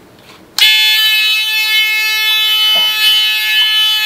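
A battery-powered electronic noisemaker (alarm buzzer) switched on about half a second in, sounding a loud, steady electronic alarm tone.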